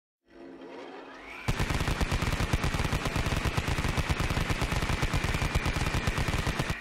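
Rapid automatic-gunfire sound effect: a whine rising for about a second, then a long run of fast, evenly spaced shots.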